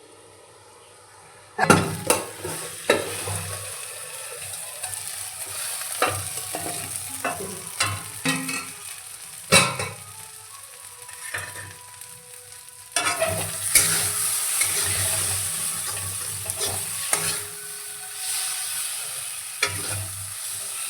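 Food frying and sizzling in a pan while a spatula stirs it, scraping and knocking against the pan again and again. The sizzle starts about a second and a half in and grows louder about two-thirds of the way through.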